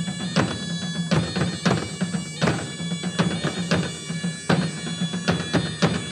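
A live folk band playing an instrumental passage: a steady low drone under a held melody line, with regular drum hits.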